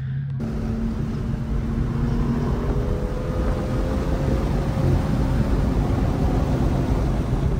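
Car driven at speed on a race track: a steady, dense noise of engine, tyres and wind with a faint engine note that rises slowly in the middle. It starts abruptly just after the beginning.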